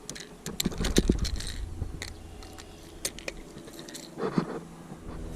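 Sharp clicks, knocks and crunching of close handling, densest about a second in with a low rumble under them, and a short voice-like sound about four seconds in.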